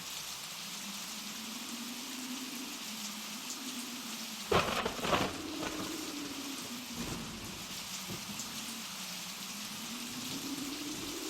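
Blizzard wind with a low moaning howl that rises and falls over a steady hiss. About four and a half seconds in come two sharp axe chops into a log, half a second apart, then a fainter knock a couple of seconds later.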